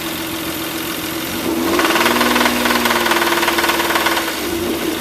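Toyota 1MZ-FE 3-litre aluminium-block V6 idling, then revved up about a second and a half in and held for a couple of seconds before dropping back to idle. A rapid knocking comes in with the higher revs: rod knock in the used engine, which sounds fine at idle.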